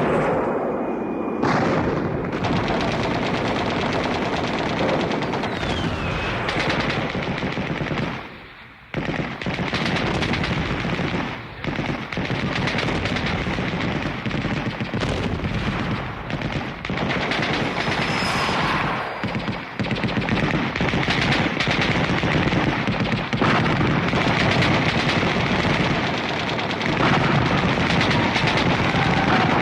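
Battle sound effect of dense, continuous gunfire with rapid machine-gun bursts, briefly letting up about eight to nine seconds in.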